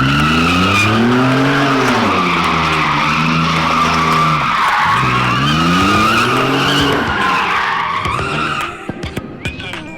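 Pickup truck doing donuts: the tyres squeal continuously while the engine revs up, holds, falls off about halfway through, then revs up again. The squeal and engine cut back about a second before the end.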